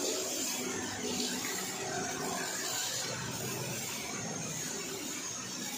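Pressure washer's high-pressure water jet hissing steadily as it rinses snow foam off a motorcycle.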